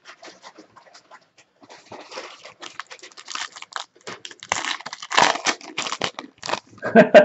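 Plastic and foil trading-card pack wrappers crinkling as they are handled and torn open by hand, an irregular crackle that grows busier in the second half. Near the end a short voice sound cuts in, the loudest moment.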